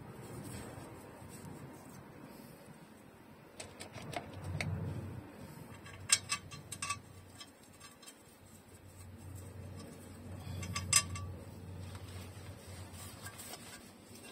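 Metal tools and parts being handled at an open truck rear differential: soft knocks about four seconds in, then sharp metallic clinks with short ringing around six to seven seconds and a loudest single clink near eleven seconds.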